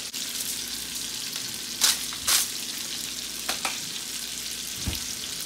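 Breakfast sausage sizzling steadily in a frying pan, broken by a few short sharp clatters, the two loudest about two seconds in.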